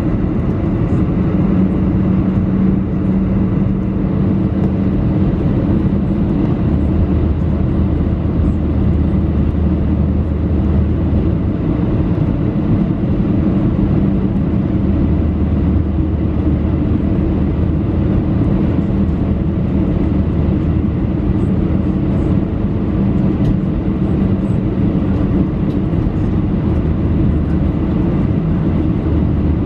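Steady cabin noise of an airliner on approach: engine and airflow rushing, with a low hum and a deeper drone that swells in and fades out several times.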